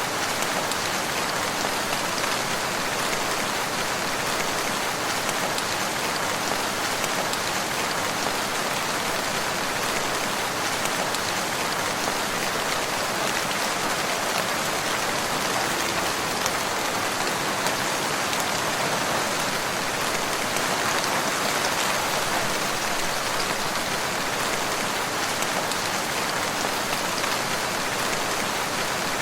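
Steady rain falling, an even hiss of drops on surfaces that holds constant.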